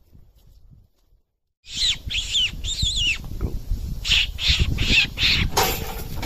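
A run of high-pitched, wavering squeals: three in quick succession, then several more after a short pause, over a low rumble. A sharp burst of noise comes near the end.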